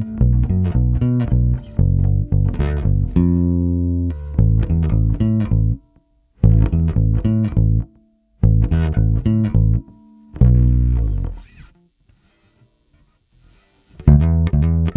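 Electric bass with Tom Marcel Vintage Mustang pickups and flatwound strings, played solo through a DI preamp and a bass compressor: phrases of plucked single notes with short breaks. About ten seconds in, a last note rings and fades away, and playing starts again near the end.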